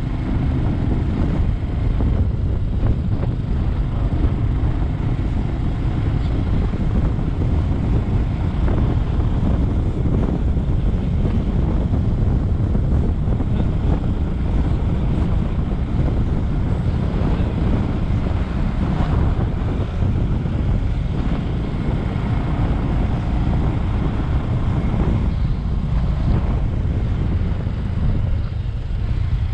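Bajaj Avenger 220 motorcycle on the move: steady wind rushing over the microphone, with the engine and road noise running beneath it.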